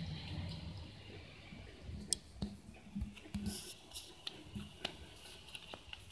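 Scattered small clicks, taps and short scrapes from a laminated plastic card being handled and turned over by hand on a hard surface, starting about two seconds in. A low steady background noise fades out in the first second.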